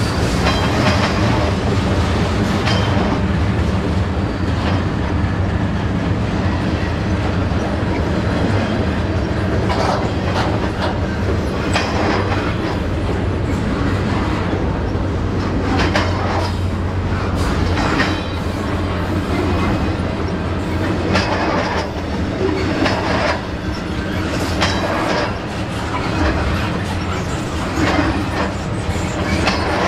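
BNSF freight train cars rolling past, a steady rumble with wheels clacking over rail joints about every two seconds.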